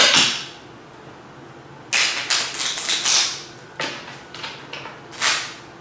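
A deck of tarot cards being shuffled by hand. A quick swish at the start, then a rapid run of flicking and snapping cards about two seconds in, a few lighter clicks, and one more short swish near the end.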